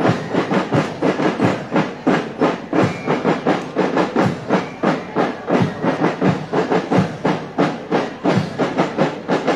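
Marching band drums (a school banda de guerra) beating a steady marching rhythm, about three to four strokes a second.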